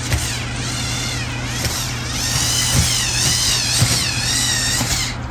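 Electric motors and plastic gear train of a Mould King 17010 remote-control brick dump truck whining as it reverses down a slope. The whine wavers up and down in pitch and grows a little louder about two seconds in, over a steady low hum.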